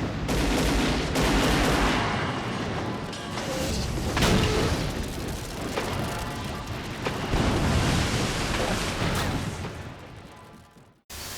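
Monster-film battle sound effects: a run of heavy booms and blasts mixed with music, fading away about ten seconds in and then cutting off.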